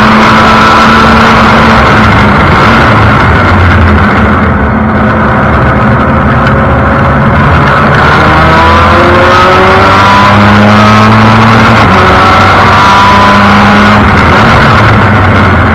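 Formula Mazda race car's rotary engine running hard on track, its pitch repeatedly rising through the revs and dropping at each gear change. It is picked up very loud and close by an onboard camera in the open cockpit.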